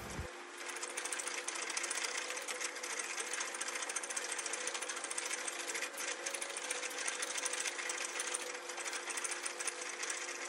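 Spring pole lathe in use, a chisel cutting a cove in a wooden spindle as the rope drives it back and forth: a fast, even rattling clatter.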